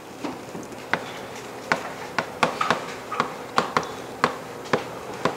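Chalk writing on a blackboard: about a dozen sharp, irregular taps and short scrapes as the strokes of a word are written.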